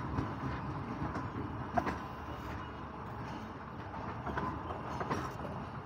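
Passenger train rolling slowly into a station, a steady running noise from the coaches with a few faint clicks from the wheels.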